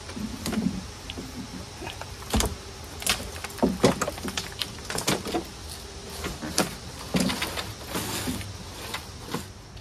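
Honda walk-behind self-propelled mower being tipped back onto its wheels and rolled back and forth by its handle: a run of clunks, knocks and wheel rattles. The rolling tests the rear-wheel drive, which drags when the mower is pulled backwards.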